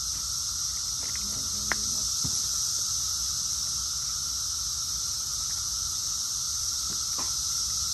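Steady, high-pitched chorus of insects such as crickets, with a low rumble underneath and a few faint short clicks.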